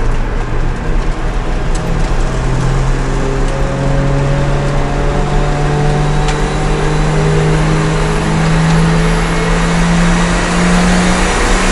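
Daihatsu Copen's engine heard from inside the cabin, pulling hard in one gear, its note rising slowly and steadily as the car gathers speed, over road and tyre noise.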